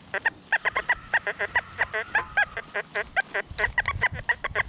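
XP Deus II metal detector giving rapid, choppy beeps, several a second, some wavering in pitch, as the coil sweeps over iron and foil trash.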